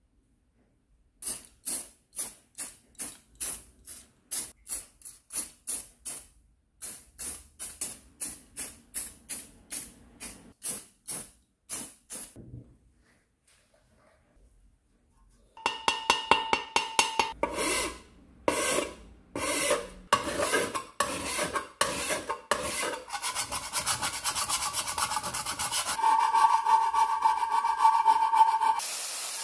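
Hand abrasion on a metal part: rhythmic rasping rubbing strokes, about two or three a second. After a pause of a few seconds about halfway through, the strokes come back faster and denser and run together into a near-continuous rasp near the end.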